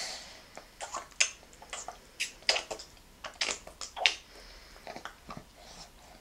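A six-month-old baby eating mashed yams with his hands, sucking and smacking them off his fingers: a run of irregular short smacking clicks, loudest about a second in and again about four seconds in.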